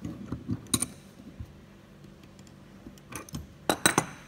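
Adjustable spanner clicking and clinking on a steel nut and the stainless steel rinser tray as the nut is tightened, with a few light clicks early on and a cluster of sharper metal clinks about three and a half seconds in.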